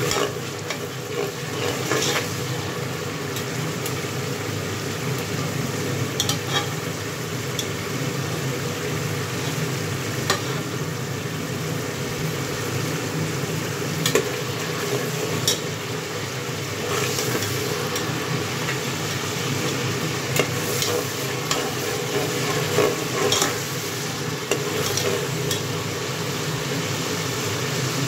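Tomato-and-onion masala sizzling and frying in oil in an aluminium pressure cooker, stirred with a perforated metal skimmer. Occasional clicks and scrapes of the metal skimmer against the pot.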